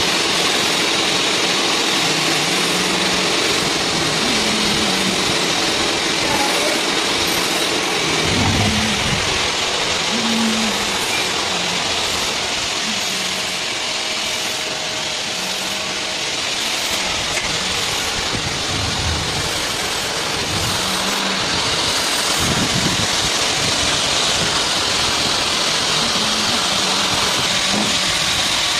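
CNC lathe face-grooving a spinning metal disc under flood coolant: a steady spray hiss over the running machine, with metal chips breaking off.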